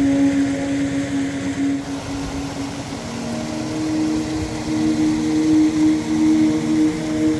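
Background music: an ambient synth track of held, droning chords, moving to a new chord about three seconds in.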